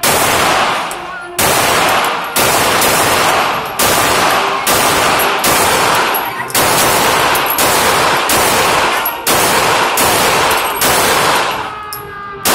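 Gunshots: about a dozen single shots fired in quick succession, roughly a second apart, each with a long ringing echo.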